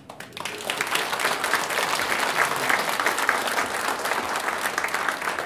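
Audience applauding. The clapping swells in over the first second and then holds steady.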